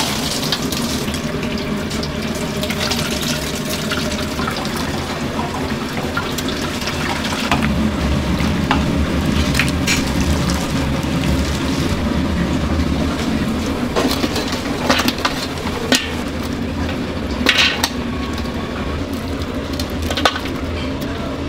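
Broth streaming and dripping off a mesh strainer of boiled pork bones and cabbage back into a large steel pot. The strainer clinks against the pot now and then, over a steady low drone.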